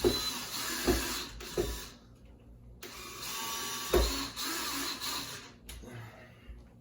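Power drill running in two bursts, about two and then three seconds long, driving screws into a blind's mounting bracket.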